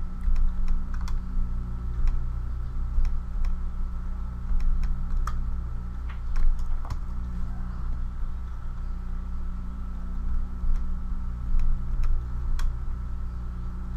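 Irregular clicking of a computer mouse and keyboard, a few clicks at a time, over a steady low hum.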